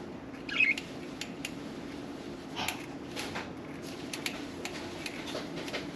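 Budgerigars giving short chirps and clicks, the loudest chirp about half a second in, over a steady low hum.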